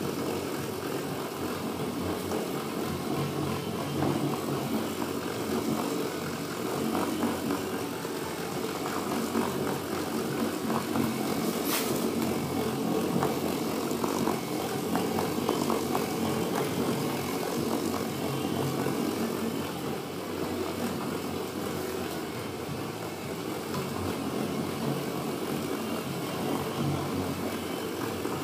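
Chicago electric orbital polisher running steadily, its pad buffing wax on a car's painted panel. There is one brief sharp click about twelve seconds in.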